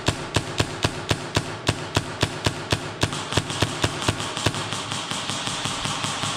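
Airsoft gun firing steady, rapid single shots, about four a second, with a hiss joining about three seconds in.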